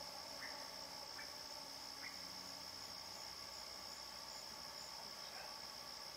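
Steady night chorus of crickets, a continuous high-pitched trill, with a few brief faint sounds from small animals scattered through it.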